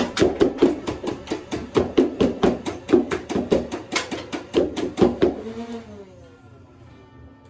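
Battery-powered Nerf Rival blaster firing full-auto, a rapid even stream of shots several a second. The burst stops about five seconds in, and the motor winds down with a falling whine.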